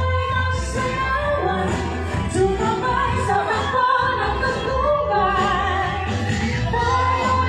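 Music with a woman singing over a steady bass line.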